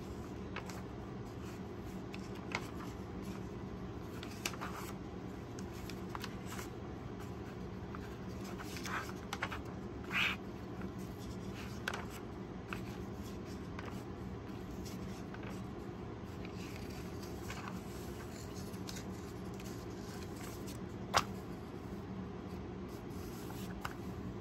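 Paper pages of a printed photo zine turned by hand: scattered soft rustles and short page flicks, with a louder rustle about ten seconds in and a sharp click near the end. A steady low hum runs underneath.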